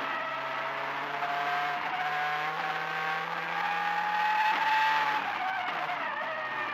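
Ford Focus WRC rally car's turbocharged four-cylinder engine heard from inside the cockpit at speed, its pitch climbing steadily under acceleration for about five seconds, then falling away as the driver comes off the throttle near the end.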